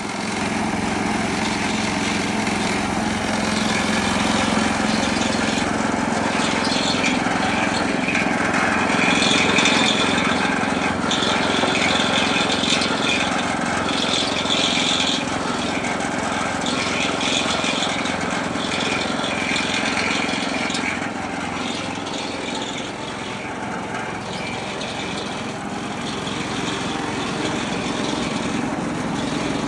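Small engine running steadily, driving a gold trommel wash plant, with irregular clatter from the turning drum and water going through it.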